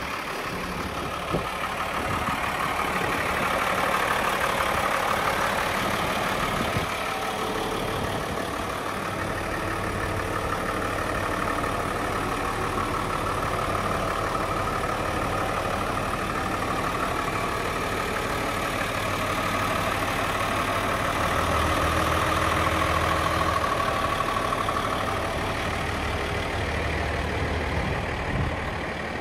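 Diesel engine of an Isuzu FVM 1400 truck idling steadily.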